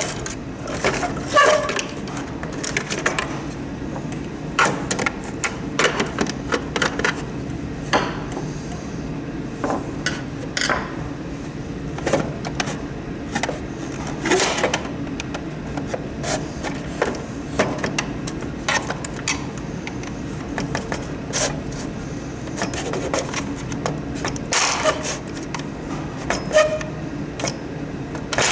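Scattered clicks, knocks and rubbing of plastic parts and tools being handled while a humidifier is taken apart, over a steady low hum.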